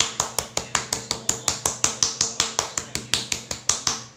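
Kitchen knife blade chopping quickly and lightly into a raw chicken breast fillet on a wooden cutting board, an even run of sharp knocks about six a second, scoring the meat. The chopping stops just before the end.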